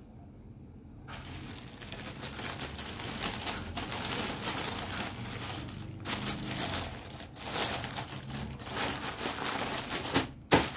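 Clear plastic packaging bag crinkling and rustling as a folded cloth suit is slid into it and smoothed down by hand, starting about a second in. A sharp click comes near the end.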